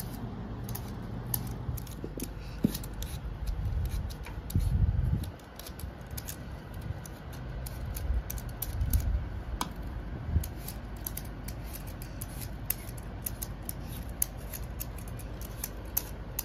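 Hand peelers scraping the skin off raw green mangoes: a steady run of small, sharp scraping clicks, with a few dull low thumps about four to five seconds in.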